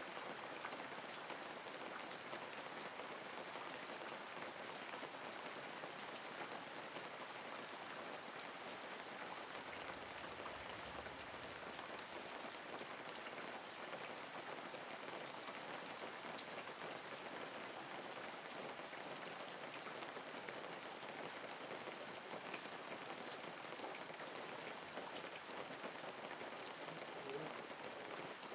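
Light rain falling steadily, an even hiss with scattered small drip ticks.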